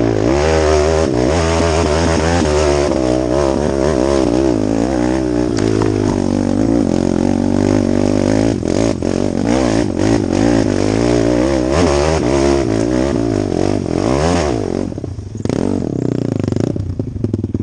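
Off-road vehicle engine heard from the rider's seat while riding a rough dirt trail. The revs swell up and down quickly and continually, with knocks and rattles over bumps. It eases back to lower revs about fifteen seconds in, then picks up again.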